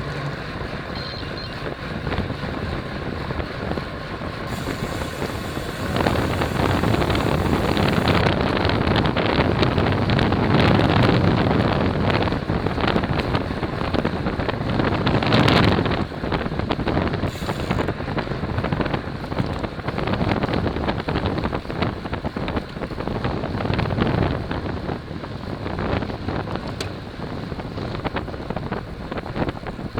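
Wind rushing and buffeting over the microphone of a camera riding along on a road bicycle. It gets louder about six seconds in, is strongest around the middle, then eases off somewhat.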